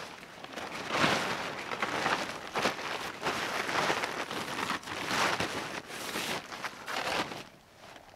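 A camouflage tarpaulin groundsheet rustling and crinkling as it is unfolded and smoothed over the ground, in a run of uneven swishes that dies down near the end.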